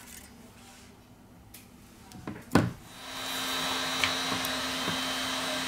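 A sharp click about two and a half seconds in, then a steady blowing whir with a low hum that sets in and holds, like a hot-air heat gun running.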